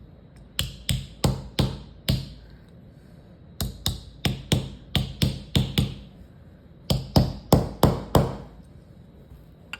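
Light hammer taps on a revolver's steel side plate, seating it onto the frame: three quick runs of taps, a few a second, with short pauses between them.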